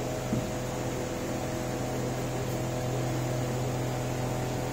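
Steady low hum of a running household appliance over an even hiss, unchanging throughout.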